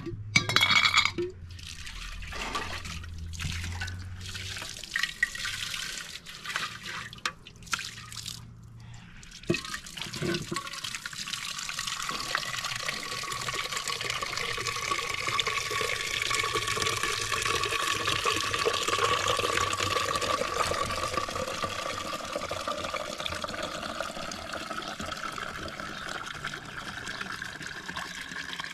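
Water pouring steadily into a vessel, with a faint tone that slowly rises in pitch as it fills. A few knocks and clatters come before the pouring starts, in the first ten seconds.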